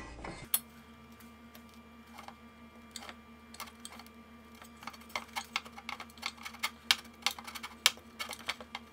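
A 6 mm hand tap being worked through a drilled hole in a steel battery box with a T-handle tap wrench: a run of small metallic clicks and ticks, sparse at first and coming quickly from about halfway on. A faint steady hum sits underneath.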